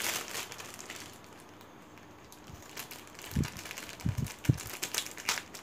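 Clear plastic packaging bag crinkling as it is handled and snipped open with scissors. There are sharp crackly clicks and a few soft thumps from about three and a half to four and a half seconds in.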